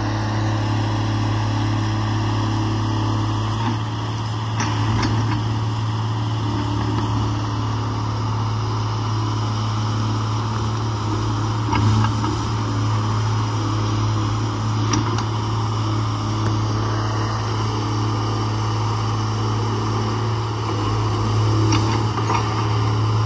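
Case 125B excavator's diesel engine running steadily with a low hum as the machine works its boom and bucket, setting down a tree stump. A few faint knocks come through now and then, and the engine swells briefly about halfway through.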